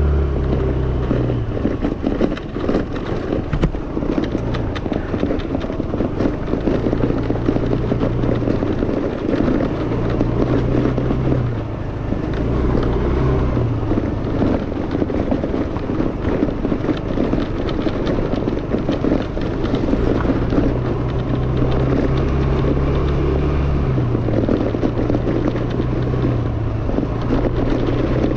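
Yamaha Fascino scooter under way, its single-cylinder engine running with its note rising and falling as the throttle changes, with wind noise on the microphone.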